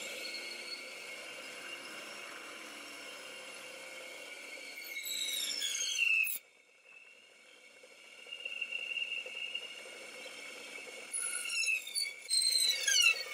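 A small 9-inch Duro band saw running with a steady high whine, then cutting wood twice, about five seconds in and again near the end. During each cut the pitch bends and the sound grows louder. The sound cuts off suddenly just after the first cut.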